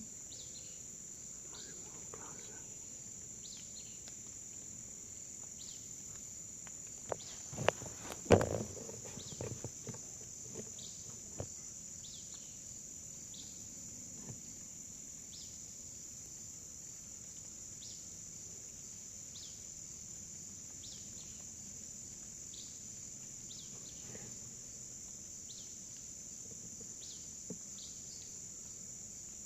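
Steady high-pitched drone of insects, with short falling chirps repeating about once a second. A few sharp knocks come about eight seconds in.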